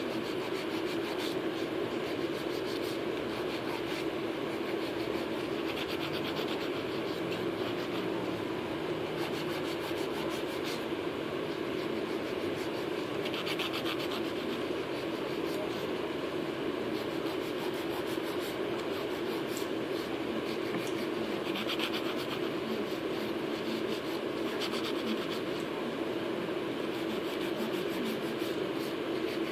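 Coarse hand nail file rasping back and forth across artificial nail tips in repeated bursts of quick strokes, over a steady low hum.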